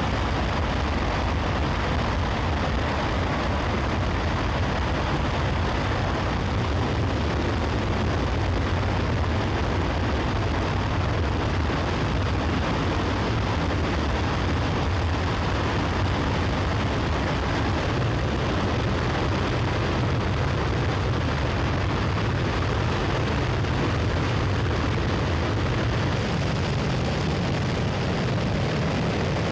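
Space Shuttle Main Engine (RS-25), a liquid-hydrogen/liquid-oxygen rocket engine, firing on a test stand: a loud, steady rushing rumble of rocket exhaust, heaviest in the deep bass, holding the same level throughout.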